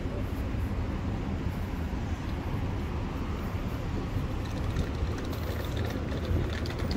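Dubai Metro train running, a steady low rumble of the carriage on the track, with a few faint light clicks near the end.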